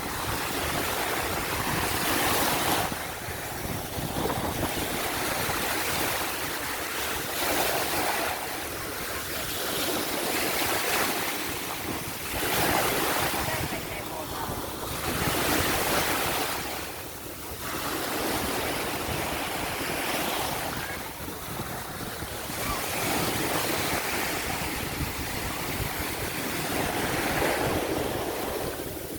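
Ocean waves breaking and washing onto the shore, a steady rush of surf that swells and falls back every few seconds.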